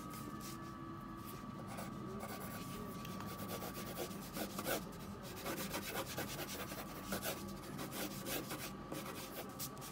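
Colored pencil scratching across paper in many quick, irregular sketching strokes.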